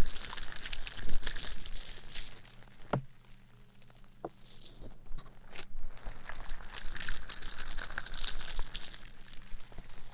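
Close-miked crinkling and crackling ASMR sounds, with a quieter lull in the middle.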